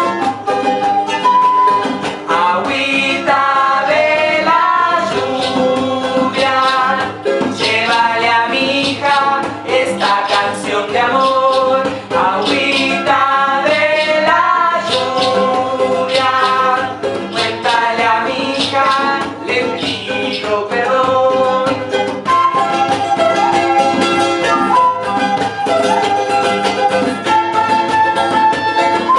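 Live band playing an instrumental passage of a folk song between verses: a melodic lead line moving from note to note over the accompaniment, with a rattle shaking along.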